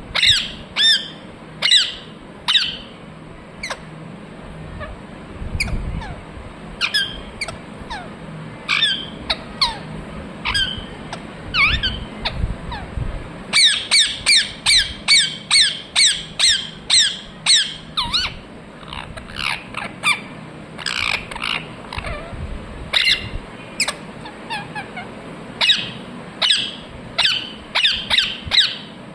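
Ringneck parrot (rose-ringed parakeet) chirping: repeated short, high-pitched calls, each a quick sweep falling in pitch. They come in irregular series, with a fast run of about two or three calls a second near the middle.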